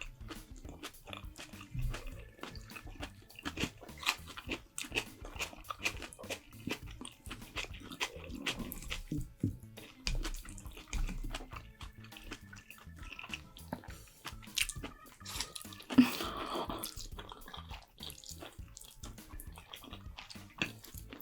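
Close-miked eating sounds: chewing, biting and wet mouth smacks of Korean food, over soft background music, with one sharp knock about sixteen seconds in.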